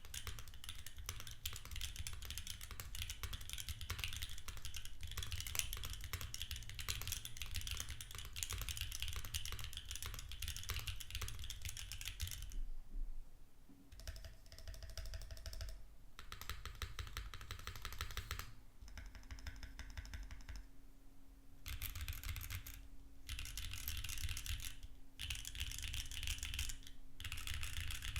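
Typing on a Vertex Arc60 mechanical keyboard with lubed Gateron Luciola linear switches in an aluminium plate with no foam, under GMK Monarch keycaps: a fast, continuous clack of keystrokes and bottom-outs, loud from the aluminium plate. After about twelve seconds the typing breaks into shorter bursts with brief pauses between them.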